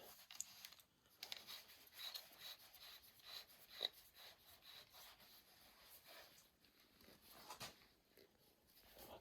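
Near silence with faint scratching and rustling and a few soft ticks, the clearest about four seconds in.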